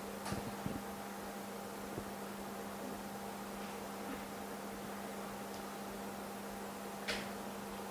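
Steady electrical hum with a low drone and fainter higher tones, over a faint hiss, broken by a couple of brief faint ticks.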